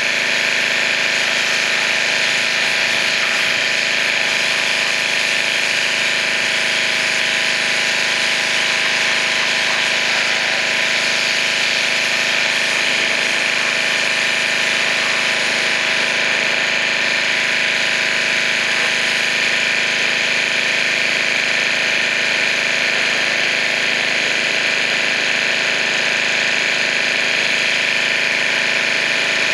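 Pressure washer running steadily: an unbroken motor drone with the hiss of its water jet.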